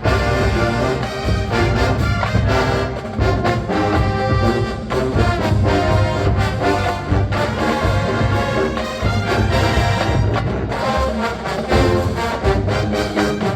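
Marching band playing a funk arrangement: massed trombones and trumpets over a steady drum beat.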